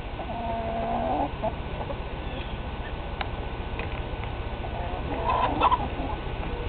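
Rooster calling, a drawn-out cluck about a second long near the start, then a short, sharp sneeze about five and a half seconds in, the loudest sound here.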